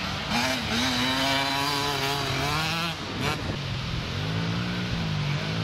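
Motocross bike engines revving hard on track: one engine climbs in pitch and holds high for a couple of seconds, then drops off about three seconds in, with lower engine notes from other bikes running on after.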